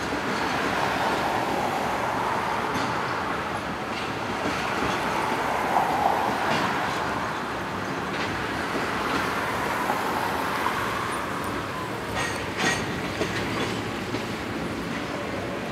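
Freight train of covered hoppers and tank cars rolling slowly past: a steady rumble of steel wheels on rail with scattered clicks as wheels cross rail joints, several sharp clicks coming close together about twelve seconds in.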